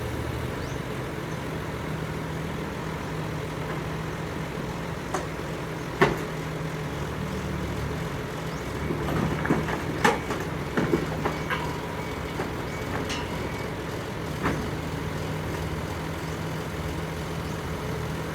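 Diesel engine of a tracked excavator running steadily, with a few sharp knocks scattered through it: one about six seconds in, a cluster a few seconds later, and another near the end.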